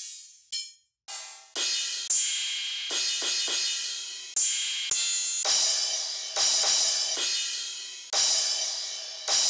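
Crash and splash cymbal samples previewed one after another, about a dozen sudden hits in quick succession, each decaying and then cut off as the next one starts.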